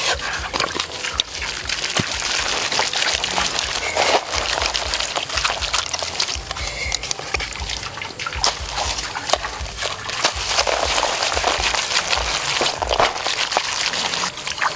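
Wet squishing and smacking of hands rubbing a sticky chili spice paste into a slab of meat, with many small clicks throughout.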